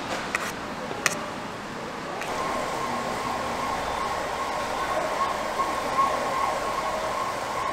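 Busy market background noise with two sharp clicks in the first second or so. From about two seconds in, a thin, steady high tone rises above the background and holds.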